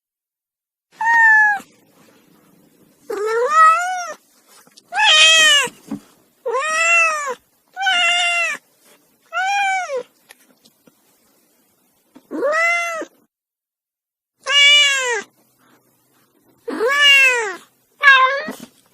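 Domestic cat meowing repeatedly, about ten separate meows with short pauses between them. Each meow rises and then falls in pitch.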